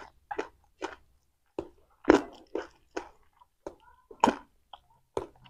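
Raw pea eggplants (cepoka) being chewed close to the microphone: a run of short, crisp crunches, about two a second.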